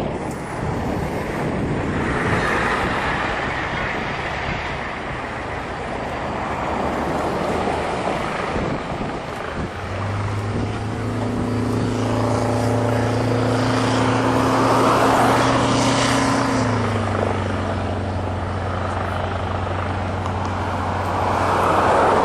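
Engine noise over a steady rush, with a low, even drone setting in about ten seconds in and dropping slightly in pitch about two-thirds of the way through.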